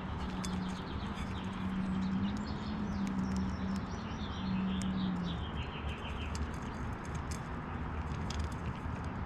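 Small birds chirping at a backyard seed feeder, over a low steady drone that breaks off a little past halfway. Scattered light clicks run through, like seeds being handled and cracked at the feeder.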